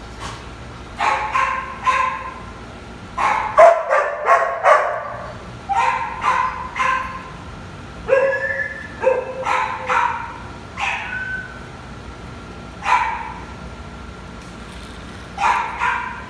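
A dog barking in short runs of two to five barks, with pauses between the runs.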